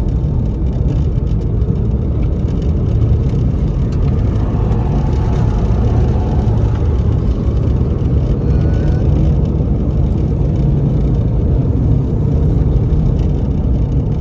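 Dodge Avenger being driven, a steady low engine and road rumble heard from the car.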